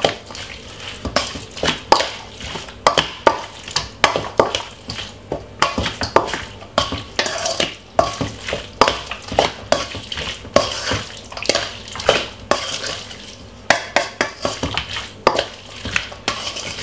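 Metal spoon stirring raw chicken pieces and curry paste marinade in a stainless steel mixing bowl: irregular clinks and scrapes of spoon on bowl, a few a second.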